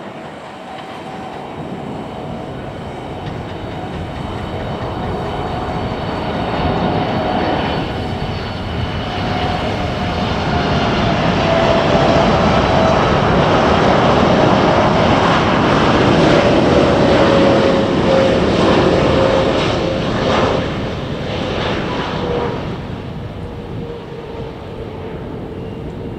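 Boeing 747-8 freighter's four GE GEnx-2B turbofans on landing approach, flying past: a rumble that swells to its loudest around the middle and then eases off, with a whining tone that slowly falls in pitch as the jet goes by.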